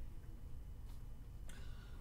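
Quiet room tone with a low steady hum, broken by a faint click a little under a second in and a brief soft sound about one and a half seconds in.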